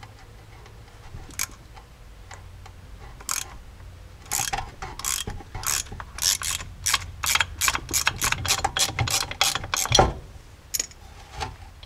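Hand socket ratchet clicking in quick strokes, about four clicks a second, as the bolts of the front driveshaft's double-cardan joint are backed out of the transfer-case yoke. One knock comes near the end.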